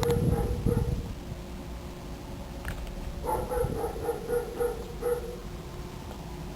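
A dog barking in short repeated barks: a couple at the start, then a quick run of about six a little past the middle.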